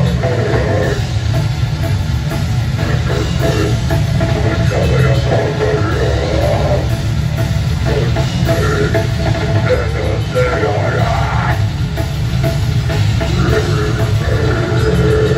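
Live rock band playing loud and heavy: electric guitar, bass guitar and drum kit, with a dense, boomy low end.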